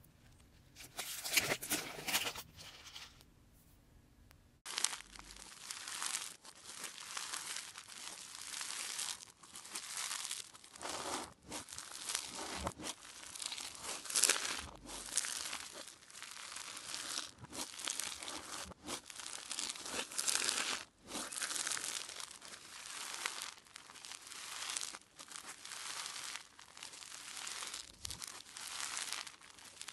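Bead-filled crunchy slime being squeezed and kneaded by hand, giving dense crackling and crunching in repeated squeezes with short pauses between them.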